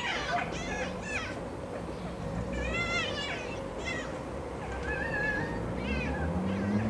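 Red fox whining and squealing while rolling on its back in the sun: a run of about five short, high, wavering calls, the longest about two and a half seconds in.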